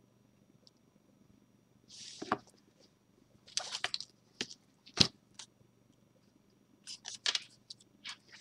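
Hands handling a small stone and a boxed card deck on a tabletop: scattered rustles and clicks, with one sharp knock about five seconds in as something is set down.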